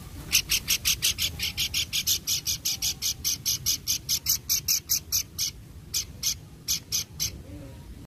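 A caged pelanduk (babbler) calling a fast, even run of sharp chattering notes, about five a second, for some five seconds. After a short pause it gives a few more spaced notes.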